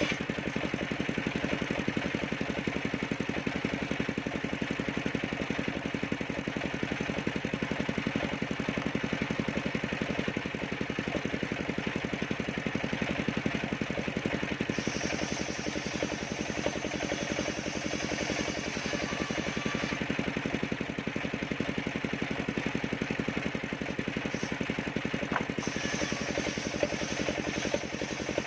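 Small engine of a portable circular sawmill running steadily at an even speed.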